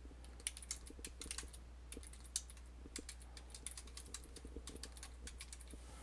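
Typing on a computer keyboard: a quick, irregular run of faint key clicks.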